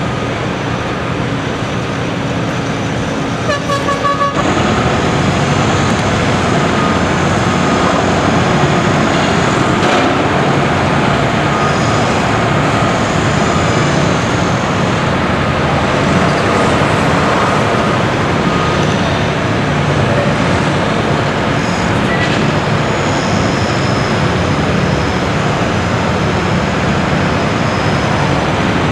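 Heavy diesel construction machinery, a wheel loader among it, running steadily under load. A short pitched horn or beeper sounds about four seconds in, and the machinery gets a little louder after it.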